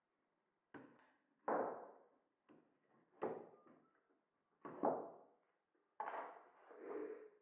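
Several short wooden knocks and clunks, irregularly spaced, as oak and walnut shoji lamp frame parts are handled and set down on a wooden workbench.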